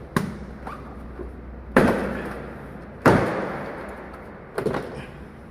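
Four sharp knocks and clunks, spaced about a second and a half apart, each dying away briefly: a car's inner door trim panel being lifted and worked free of the door.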